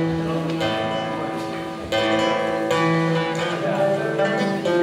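Live band playing amplified music with guitars prominent, sustained notes ringing, and a fresh loud chord struck about two seconds in.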